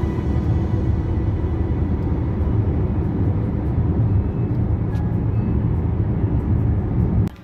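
Road and engine noise inside a car's cabin moving at highway speed: a steady low rumble. It cuts off suddenly near the end.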